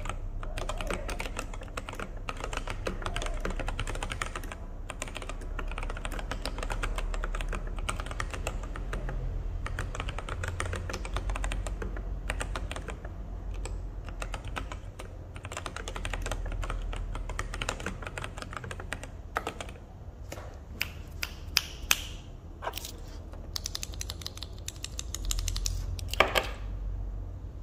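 Typing on an NJ68 mechanical keyboard with Kailh Polia tactile switches: a quick, steady run of key clacks that thins out to scattered single presses in the last several seconds.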